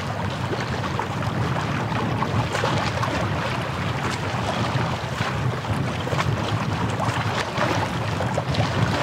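Seaside wind and water: wind buffeting the microphone over lapping shore water, a steady low rumble with many small crackles.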